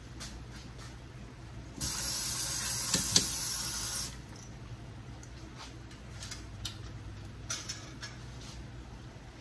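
Water rushing from a kitchen tap for about two seconds, starting and stopping abruptly, with a clink partway through.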